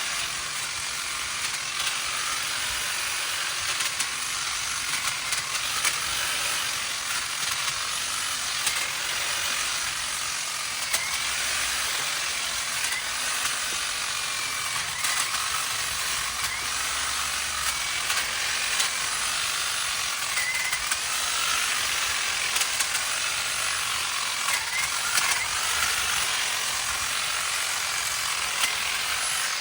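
Ego battery-powered pole hedge trimmer running, its reciprocating blades clattering as they cut through branches, with many small clicks and snaps.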